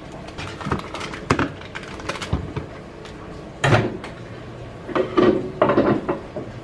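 Light rustling and small clicks as a stick of butter is peeled from its wrapper into a bowl. Then, about halfway in, a few sharp knocks and clunks: a microwave oven door is opened, the bowl is set inside and the door is shut.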